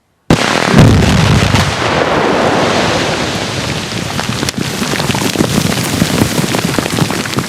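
Basement rock blast of slurry and ANFO charges in drilled holes going off: a sudden loud blast with a heavy low rumble, followed by a long dense patter of broken rock and dirt falling back.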